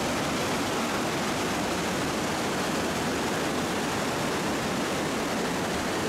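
Steady rush of a mountain stream pouring over boulders in white rapids.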